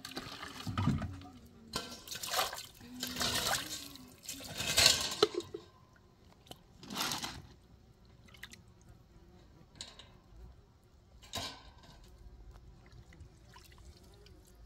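Water splashing and pouring in a run of loud bursts over the first five seconds or so, then a few short separate splashes and drips.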